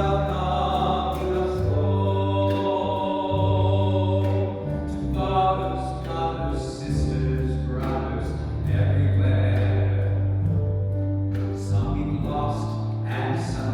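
A solo singer with a choir singing held chords that change every second or two.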